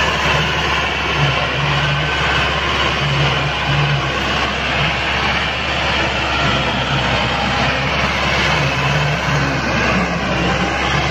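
Massey Ferguson 385 tractor's four-cylinder diesel engine running steadily under load as it tows a heavily loaded trolley.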